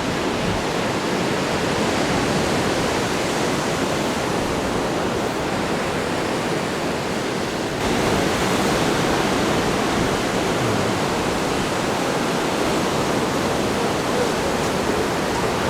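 Steady rushing noise of ocean surf breaking on the beach, a little louder from about eight seconds in.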